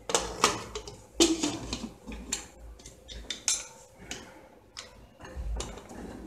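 Aluminium pressure cooker lid being set on the pot and turned shut by its handle: a series of metal clanks and scrapes, loudest in the first second and a half.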